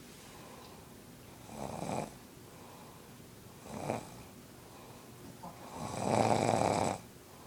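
A man snoring in his sleep: three snores, one about two seconds in, a shorter one near four seconds, and a longer, loudest one lasting about a second near the end.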